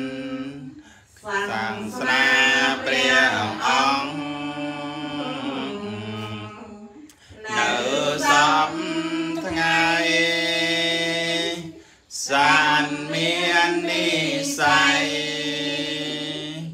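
Buddhist devotional chanting in Pali, voices sustaining long intoned phrases with short breaks between them.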